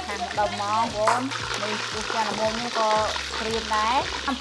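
Food frying and sizzling while it is stirred in a pan, under background music with a sliding melody and held bass notes.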